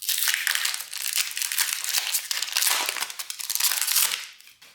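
Foil wrapper of a Pokémon trading-card booster pack crinkling as it is handled and opened; the crinkling stops about four seconds in.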